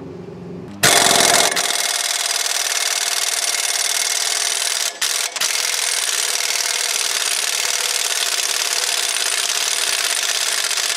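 Impact wrench with a 17 mm socket hammering on a rusted, oil-soaked lower strut retaining bolt, starting about a second in and running steadily for about ten seconds, with two brief pauses about five seconds in. This is the bolt being broken loose.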